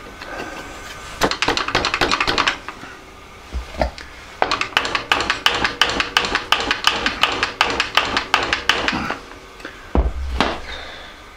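Hammer blows on the end of a wooden drift held against the bandsaw gearbox shaft, driving the shaft out through its pressed-in bearings. There is a short run of strikes a little after a second in, then a long fast run of about five blows a second, and one heavier, deeper thump near the end.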